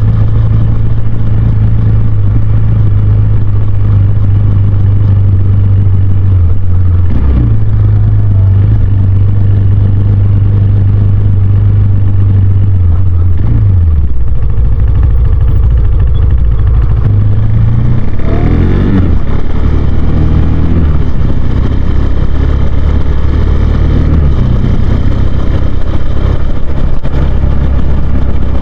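Husqvarna Svartpilen 401's single-cylinder engine running under way, holding a steady note, dipping in pitch twice, then revving up sharply about two-thirds of the way in before settling to a lower, steady note.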